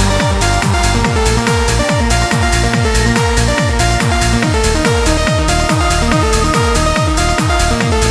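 Electronic trance music with a fast steady kick-drum beat and sustained synth notes.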